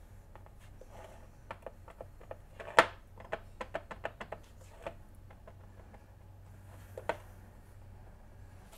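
Metal fork crimping a pastry lid onto an enamel pie dish: a run of light clicks and taps, about four a second, with a louder knock about three seconds in and another near seven seconds.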